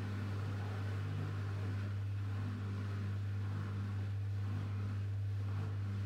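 Electrolux PerfectCare 600 front-loading washing machine running mid-cycle: a steady low hum over a soft hiss.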